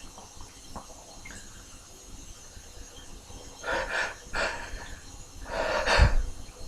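A man's sharp, breathy intakes and sniffs as a sneeze builds, set off by tickling inside his nose: two short ones a little past halfway, then a louder burst of breath with a low thump near the end.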